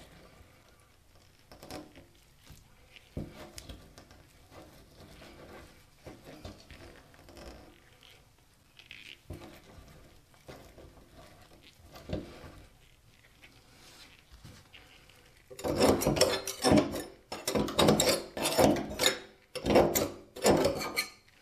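Faint rubbing and picking as a gloved hand pulls hair out of a bathtub drain. Then, about three-quarters of the way in, a table knife starts scraping and knocking against the drain's metal strainer in a quick series of loud strokes, cutting loose hair caught on the crossbar.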